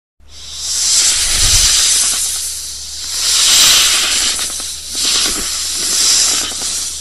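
Snake hissing in three long, swelling breaths, each rising and fading away.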